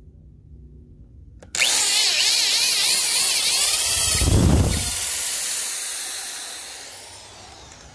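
Electric drill spinning an auger bit into a treated wooden deck post: the drill starts suddenly about a second and a half in, its pitch wavering as the bit bites into the wood, with a heavier low rumble around the middle, then trails off toward the end.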